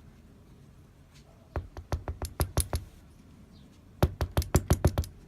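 Two quick runs of sharp clicks and taps, about eight in each, from a disassembled pin-tumbler lock being handled while its pin chambers are emptied of pins and springs.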